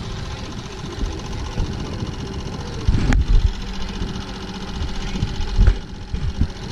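Fishing boat's motor running steadily at trolling speed, an even mechanical hum. A sharp click about three seconds in and a few heavy low knocks, the loudest near the start of the click and again near the end, come from handling gear on the boat.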